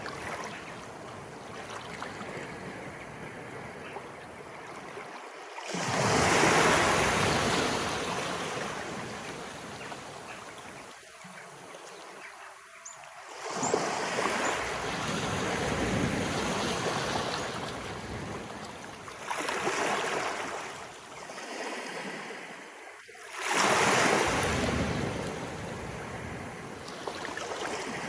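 Incoming tide: sea waves breaking and washing up the shore, four surges that each come in suddenly and then slowly fade, the first and last the loudest.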